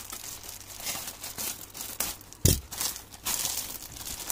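A shipping parcel's packaging being crinkled and torn open by hand in a run of irregular crackles, with one thump about two and a half seconds in.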